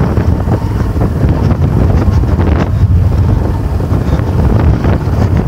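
Loud wind buffeting on the microphone of a moving vehicle, with a low rumble underneath.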